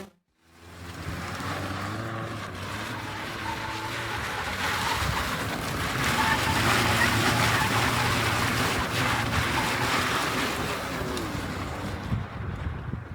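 ATV engine running under the ride, its note wavering up and down, with heavy wind noise buffeting the microphone. It fades in about half a second in.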